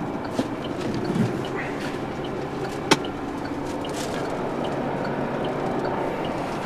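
Steady hum of a diesel truck engine idling, heard from the cab with the door open. A single sharp click comes about three seconds in.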